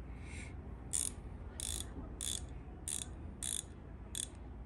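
Milwaukee 3/8-inch-drive slim-profile ratchet swung back and forth by hand, its pawl clicking in six short runs about two-thirds of a second apart.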